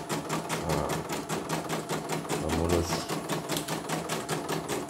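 CNY computerized embroidery machine stitching steadily with a fast, even needle rhythm. It is running smoothly again after being repaired from a total jam.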